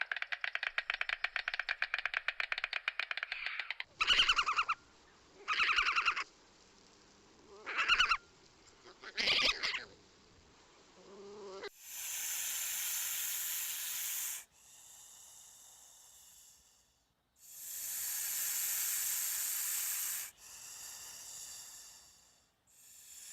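Animal sounds: a rapid rattling for the first few seconds, then four short pitched calls, then loud hissing in long blasts of two to three seconds, alternating with quieter hisses.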